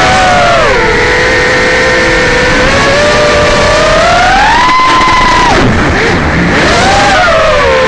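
Racing quadcopter's brushless motors (Racerstar BR2205 2600KV) whining, the pitch rising and falling with throttle. It climbs to its highest about five seconds in, then drops sharply and swings up and down again.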